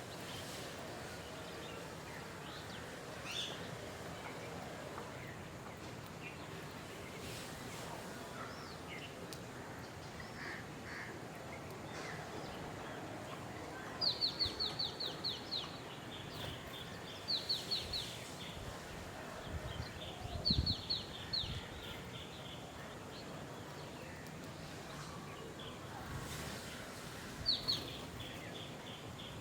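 A songbird repeating a short, fast phrase four times over a steady background of outdoor noise. Each phrase is a quick run of high notes that steps down in pitch, and a few faint calls from other birds come in between.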